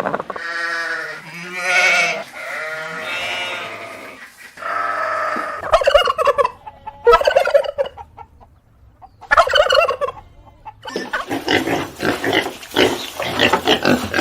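Domestic poultry calling: a series of loud, wavering, drawn-out calls over the first ten seconds, then a busy stretch of rapid, overlapping short calls near the end.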